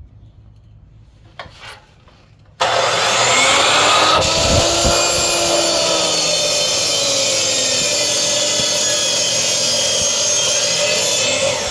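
A power tool starts suddenly about two and a half seconds in and cuts steadily through the plastic housing of a refrigerator water filter cartridge, a loud grinding noise with a whine that wavers slightly in pitch. It winds down just before the end.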